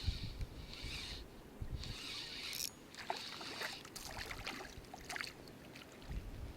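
Spinning reel being wound in bursts while a hooked small pike is brought in, with water splashing and clicks of the tackle. Wind buffets the microphone at the start and near the end.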